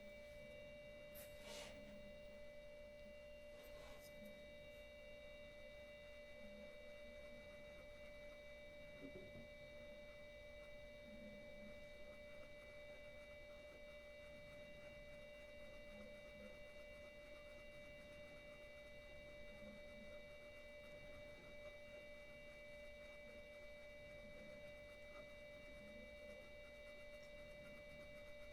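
Near silence with a faint, steady high-pitched whine made of several constant tones, typical of electrical noise in the recording. A couple of soft clicks fall in the first few seconds.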